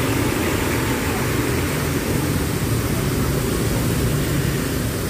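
A stationary coach bus's diesel engine idling with a steady low drone, over an even hiss of traffic on a wet road.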